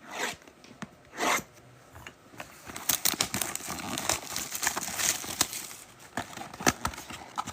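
Plastic wrapping being torn open on a box of trading cards: two short rips near the start, then a few seconds of crinkling and crackling as the wrap is pulled off.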